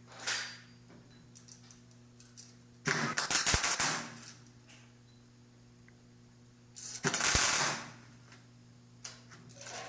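Two bursts of electric arc welding crackle, each about a second long, as small tack welds are made on the printer's belt clamps, with a shorter burst at the very start. A steady electrical hum runs underneath.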